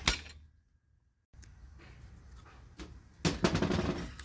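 Handling noises from work on a washing machine's motor: a sharp clatter right at the start, and a brief scraping rattle about three seconds in.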